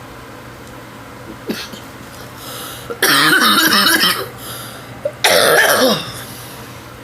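A woman coughing hard after drawing on an electronic cigarette, in two loud fits: one about three seconds in lasting over a second, another just past five seconds. The vapour irritates her throat.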